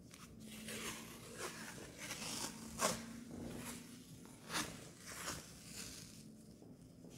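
Athletic tape being peeled off its roll and pulled around an ankle: a series of short peeling sounds, the strongest about three seconds and four and a half seconds in.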